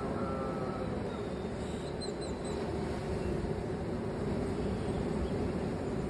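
Steady low rumble of ocean surf breaking on a beach, with a few faint, short high bird chirps about two seconds in.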